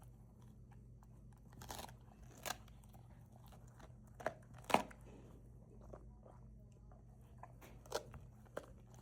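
Newfoundland dog chewing a duck neck: irregular crunches of bone and gristle between its teeth, the loudest a little before five seconds in.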